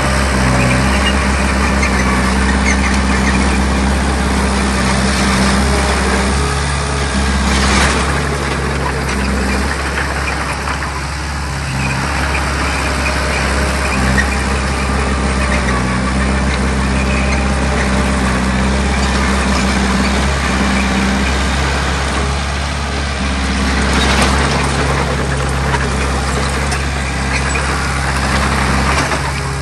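Diesel earth-moving machinery running steadily with a low engine note, with two short rushes of noise about 8 and 24 seconds in.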